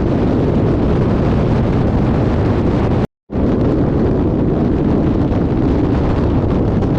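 Wind buffeting the microphone on a motorcycle at road speed, a loud steady rush over the bike's low rumble. It breaks off for an instant about three seconds in, then carries on.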